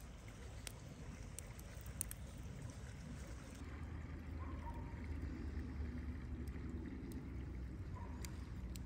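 Low, steady wind rumble on the microphone, growing a little louder about four seconds in, with a few faint clicks.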